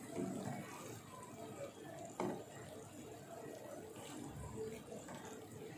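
Namak pare dough strips frying in hot oil in a pan, a faint steady sizzle and bubbling, with a single sharp click about two seconds in.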